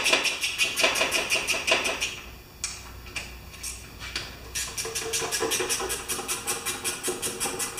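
Hand ratchet wrench clicking in rapid runs as it is worked back and forth on the bolts holding a Tecumseh snowblower engine to its transmission housing. The clicking thins out and pauses in the middle, then runs on steadily near the end.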